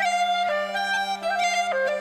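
Uilleann pipes and clarinet playing a traditional Irish tune, the pipes' drones holding a steady low note under a quick melody that moves in short steps.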